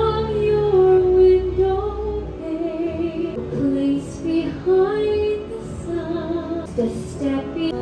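Music with a woman singing a melody with vibrato over an accompaniment.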